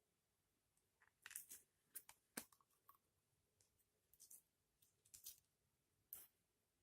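Slime being mixed by hand: faint, scattered sticky clicks and crackly pops, a few at a time, starting about a second in.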